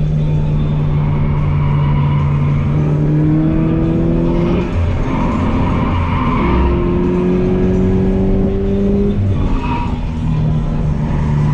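Toyota 86's 2.0-litre flat-four engine under hard track driving, heard from inside the cabin: the engine note climbs steadily twice, and each climb ends in a sudden drop in pitch.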